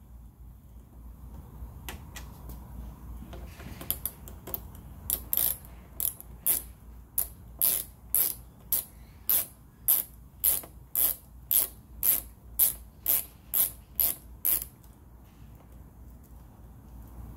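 Ratcheting T25 Torx screwdriver clicking as it backs out a fairing screw: a run of sharp, even clicks, about two a second, for roughly ten seconds starting a few seconds in.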